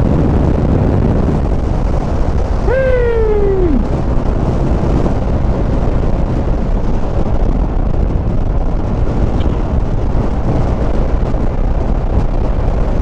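Wind buffeting on the action camera's microphone over a Yamaha Smash underbone motorcycle running at road speed. About three seconds in, a brief tone falls in pitch for about a second.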